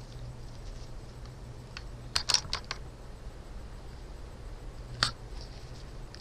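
A quick cluster of sharp clicks and taps about two seconds in and a single click near the end, over a steady low hum.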